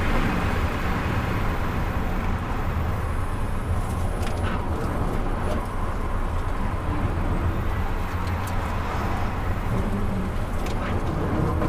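Onboard sound of an electric car lapping a race track at speed: a steady rumble of tyre, road and wind noise, with no engine note.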